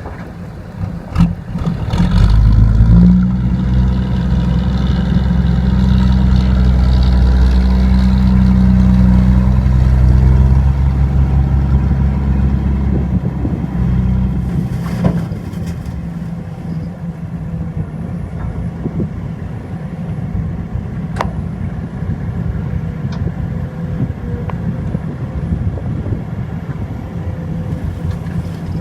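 Heavy diesel engine working hard for about twelve seconds from about two seconds in, then dropping back to a lower, steady run. There are brief knocks about a second in and again about halfway through.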